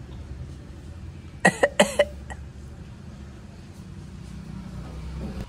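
A person coughing, three or four quick coughs about a second and a half in, over a steady low background hum.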